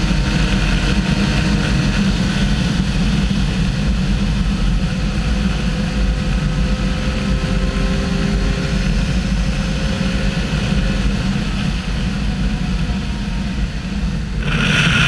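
Wind buffeting on the microphone at high road speed on a Kawasaki Versys 1000, with the bike's inline-four engine running underneath. A brighter rush of wind comes up near the end.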